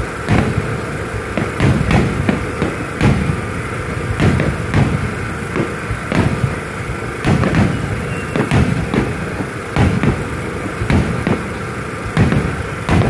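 Fireworks going off in a rapid, irregular string of booms and bangs, several a second, over a steady hum.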